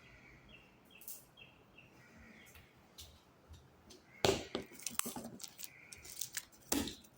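Homemade glue slime being squeezed and kneaded by hand. It gives a run of wet squelches and sharp pops starting a little past halfway through.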